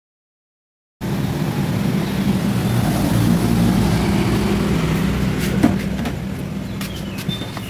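A car engine idling with a steady low hum, starting about a second in. A sharp click comes about five and a half seconds in as the car door is opened, followed by a few lighter clicks.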